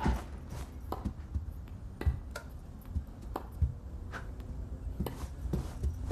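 Sharp knocks of tennis balls being struck in a tennis match playing on a television, coming irregularly about once a second.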